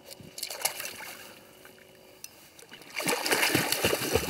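Hooked pike thrashing and splashing at the surface beside a boat: a few small splashes, then a burst of heavy splashing about three seconds in as the fish fights.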